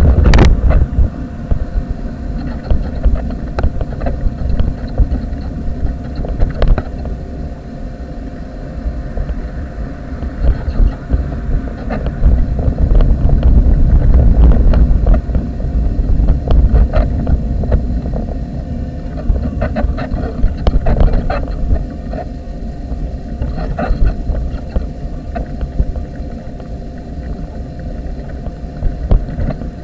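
A wheelchair rolling along a pavement, heard through a camera fixed to the chair: a loud low rumble of wheel and frame vibration with wind on the microphone, louder for a few seconds midway, with scattered knocks and jolts. Road traffic goes by alongside.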